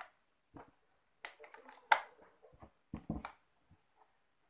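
AA batteries being pressed into the plastic battery holder of a mini DC air cooler and the unit handled: a few scattered clicks and knocks, the sharpest just under two seconds in.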